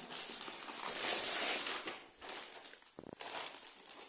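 Plastic courier bag rustling and crinkling as the rolled doormat is handled and pulled out of it, loudest about a second in, with a couple of light clicks near the end.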